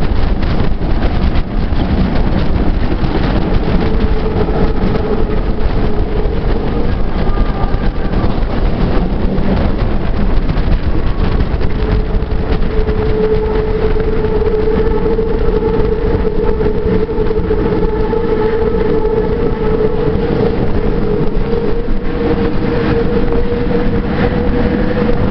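Paris Métro MF67 steel-wheeled train running through a tunnel, heard from inside a car with the window open: a loud steady rumble of wheels on rails. A steady whine joins in faintly at first and grows strong from about halfway through.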